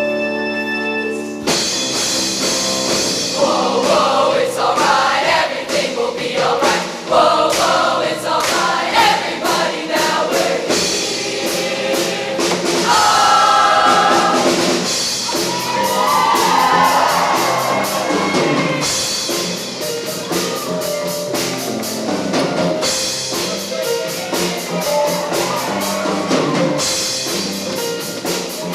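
Choir singing over a live band. Sustained keyboard chords at first, then drums and the full band come in about a second and a half in, with the voices singing over them.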